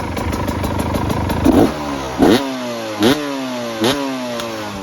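2016 Beta 300 RR's 293cc single-cylinder two-stroke engine idling, then revved with four quick throttle blips about a second apart, each rising sharply and dropping back toward idle.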